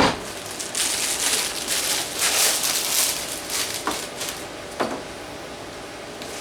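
Rustling and a few sharp knocks of someone rummaging through things on a shop bench, with a steady faint hum once the rummaging stops.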